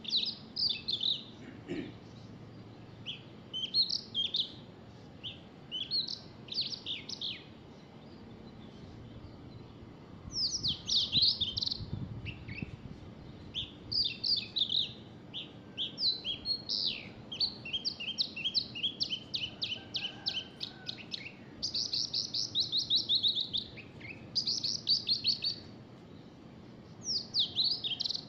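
Small birds chirping in quick high-pitched trilled phrases, each a rapid run of short falling notes, with brief pauses between phrases.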